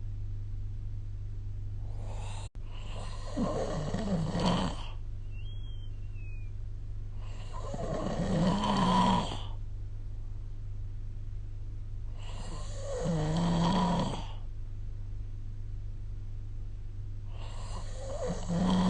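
A sleeping person snoring: four snores, each about two seconds long and spaced about five seconds apart.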